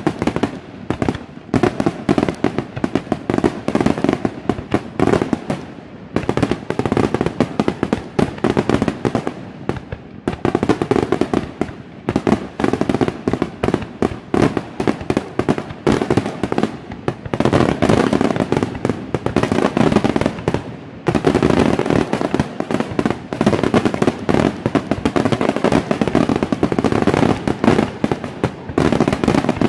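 Aerial fireworks display in a sustained barrage: shells burst many times a second, and their bangs and crackle overlap with no letup.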